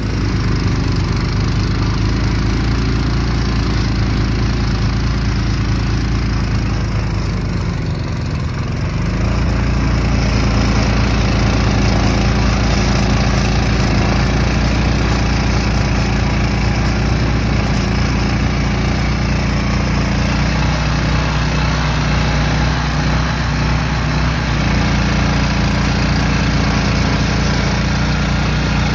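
Gas-powered bed edger's small engine running steadily under load as its blade cuts a trench through turf and soil, with a brief dip in level and pitch about eight seconds in.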